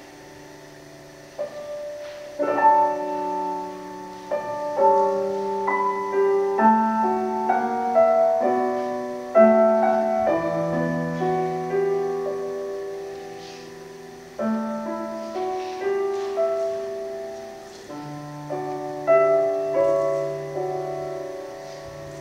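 Solo piano music: a quiet low note sounds at first, then from about a second and a half in, chords and a melody are struck roughly once a second, each note ringing and fading.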